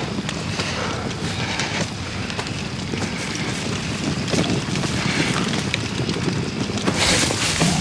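Campfire crackling over a steady rushing, wind-like background, with the rushing swelling a little near the end.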